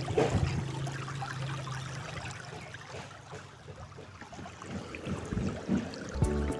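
River water trickling and flowing, with a steady low hum for the first two seconds.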